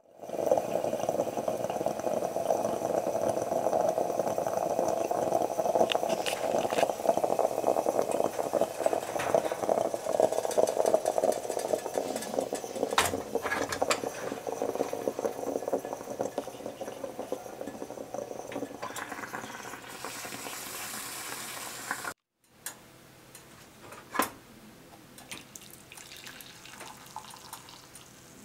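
Bialetti Moka Express stovetop coffee maker brewing on an electric coil burner: a steady crackling, bubbling gurgle as the coffee comes up. It turns into a high hiss for a few seconds and then cuts off suddenly, followed by a quieter stretch with a few light clicks.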